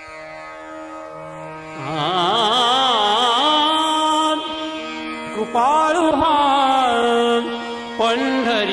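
Marathi devotional song to Vitthal (Pandharinath): soft held instrumental notes, then a singer's voice comes in about two seconds in with long, ornamented phrases.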